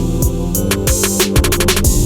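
Electronic background music with a drum-machine beat, a bass line and sustained chords, with a quick run of drum hits in the middle.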